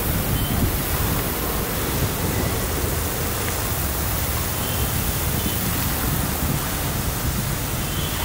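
Fountain jets spraying and splashing into their basin, a steady rushing noise.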